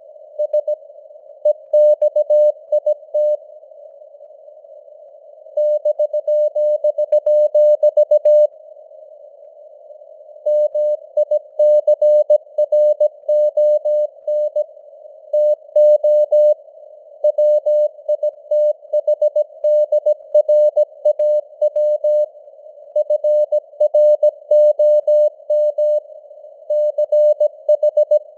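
Morse code (CW) at 17 words per minute: a single mid-pitched tone keyed on and off in quick dots and dashes over a steady hiss of simulated radio noise, with a few longer pauses between groups.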